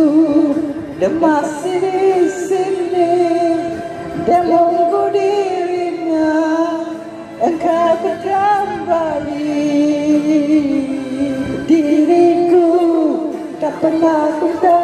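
Music with singing: a voice carries a melody of long, wavering held notes.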